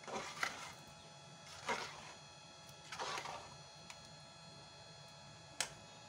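Three short scrapes about a second and a half apart, then one sharp click near the end: utensils being handled against bowls or dishes during food preparation, over a faint steady hum.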